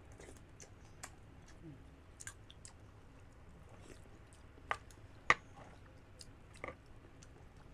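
Close-miked chewing and mouth sounds of two people eating soft young coconut meat, with a few scattered sharp clicks. The loudest click comes about five seconds in.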